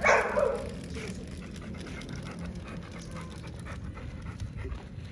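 A pit bull panting steadily with its mouth open, after a short loud sound in the first half second.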